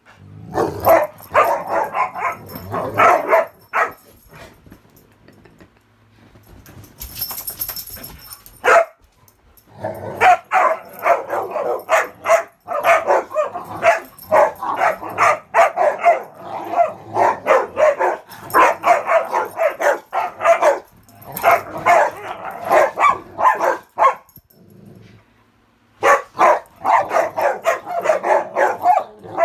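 Dogs barking in rough play: rapid volleys of high-pitched play barks, with a lull of several seconds after the first burst and a brief pause near the end.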